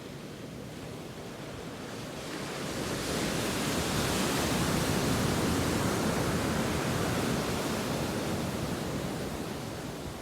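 Ocean surf: one wave builds over a couple of seconds, washes loudest through the middle, then slowly fades.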